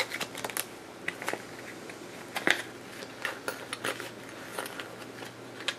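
A scatter of light, irregular clicks and taps from small fishing tackle being handled: a Siwash hook being picked out of its packet.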